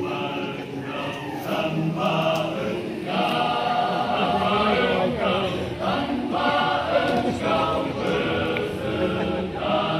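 A masamper choir, a Sangihe-style Christian vocal group, singing a sacred song unaccompanied. It sings in short rhythmic phrases with brief breaks between them.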